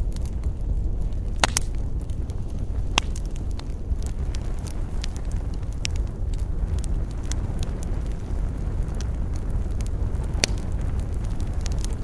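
Wood campfire burning: a steady low rumble of the flames with frequent sharp crackles and pops, a few of them louder about a second and a half, three, six and ten and a half seconds in.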